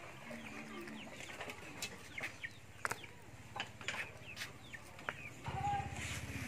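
Chickens clucking, mixed with scattered sharp clicks and taps. A low steady hum starts near the end.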